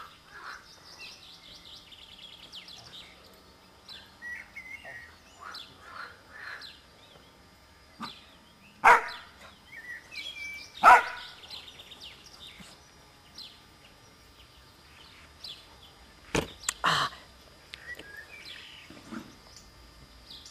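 Birds chirping and singing throughout, with a Belgian Malinois puppy giving two sharp barks in the middle and a couple more in quick succession later on.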